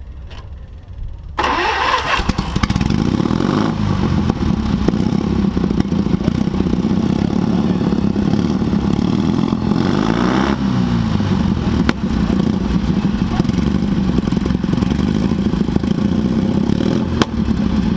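Twin-engine lawnmower fitted with open chrome pipes starting up about a second and a half in, then running steadily and loud. Around the middle the revs rise and fall once.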